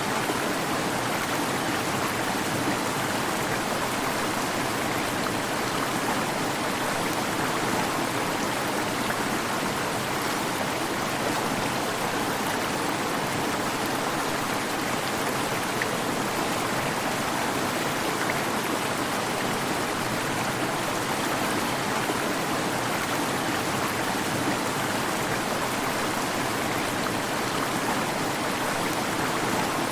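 Waterfall: water falling and rushing in a steady, unbroken wash of noise.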